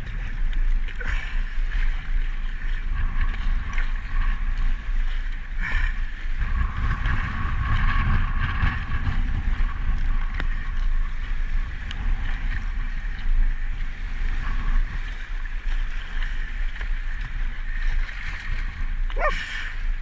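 Wind buffeting the microphone and choppy water rushing and slapping against a sea kayak's hull as it is paddled through rough, fast-moving water, with a few sharper splashes, one near the start, one about six seconds in and one near the end.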